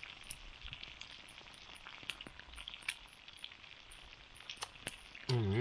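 Chicken breast, potatoes and eggs frying in a pan over a campfire, sizzling steadily with scattered small crackles while the food is turned in the pan.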